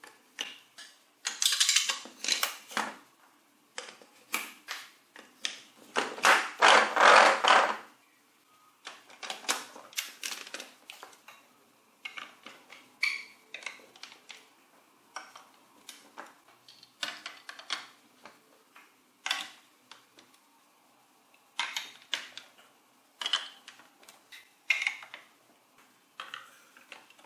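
Large Duplo-compatible plastic building blocks, gear wheels and hubs being handled and snapped together: irregular clicks and plastic clatter. There is a longer, denser stretch of clattering about six to eight seconds in.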